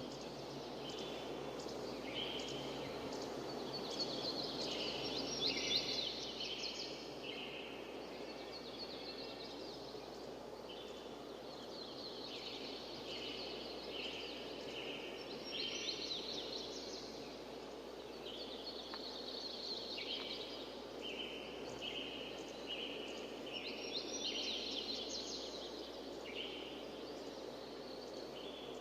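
Steady rush of a waterfall, with birds calling over it in repeated short notes that come and go in bouts.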